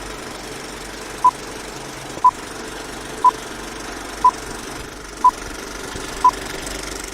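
Old-film countdown intro: a short steady beep once a second, six times, over a steady mechanical whirr.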